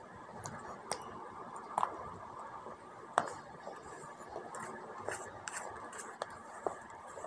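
Wet multani mitti (Fuller's earth) paste being stirred and scraped around a steel bowl with a lump of clay: a soft, continuous crackling scrape with scattered sharp clicks.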